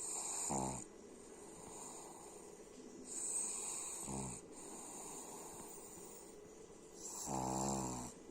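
Snoring in a slow rhythm: three snores about three and a half seconds apart. Each is a breathy hiss on the in-breath that ends in a short, low, buzzing snore, with the last one the longest.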